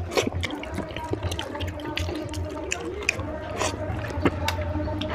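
Close-miked wet eating sounds: fingers squishing and pulling apart a gravy-soaked mutton head, and open-mouthed chewing and lip smacking, heard as many short wet clicks and smacks over a steady low hum.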